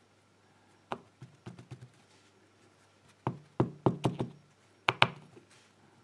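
Short, sharp knocks and clicks in irregular groups as a brass padlock plug is tapped against a plastic pin tray, shaking its small brass key pins out into the tray. The loudest two come near the end.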